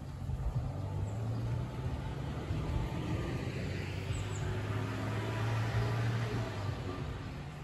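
A car driving past, its engine and tyre noise swelling to a peak about five to six seconds in and then fading, over a steady low hum. A few faint bird chirps are heard.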